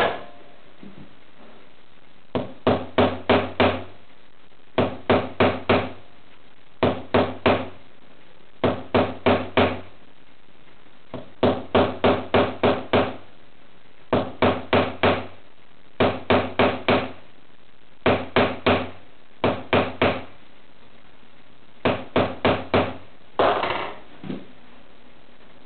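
Hammer blows on a pewter ring being shaped over a wooden block, in quick runs of four to six sharp knocks with a pause of a second or so between runs.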